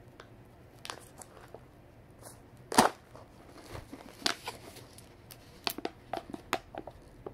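Fingers and nails picking at the plastic lid and foil seal on top of a Pringles can: scattered sharp clicks and scrapes, one much louder about three seconds in and coming more often in the second half, as the seal proves hard to get open.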